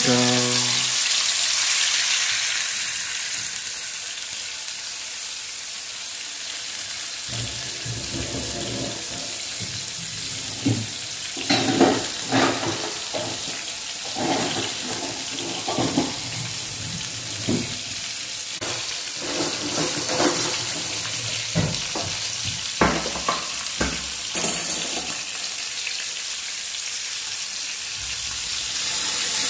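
Fish steaks frying in oil in a pan, a steady sizzle. From about a quarter of the way in to near the end, short knocks and clatter as pieces of fish are added and moved in the pan.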